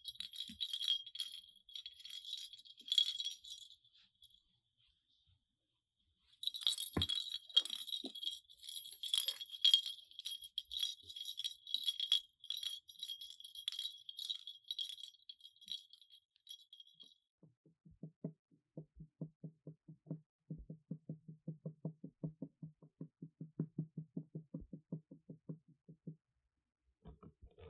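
Small bell jingling and rattling in two stretches, the second stopping about seventeen seconds in. Then a ginger tabby cat purring, heard as a low, evenly pulsing rumble, for about eight seconds.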